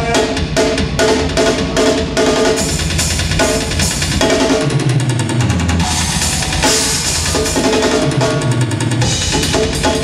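Amplified live band playing, led by a drum kit: rapid bass drum and snare strokes with crashing cymbals, over sustained guitar and low bass notes that slide down in pitch a few times.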